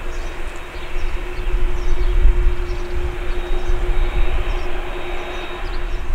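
Boeing 787-8's jet engines running steadily at low taxi power as the airliner taxis, a steady hum over a noisy rush, with a faint high whine in the middle.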